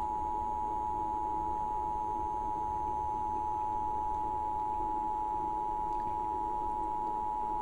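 Emergency Alert System attention signal: two steady tones at 853 and 960 Hz sounding together, the alert tone that comes before a tornado warning broadcast.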